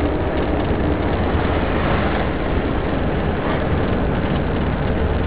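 Steady road and engine noise of a car driving along a highway, heard from inside the cabin.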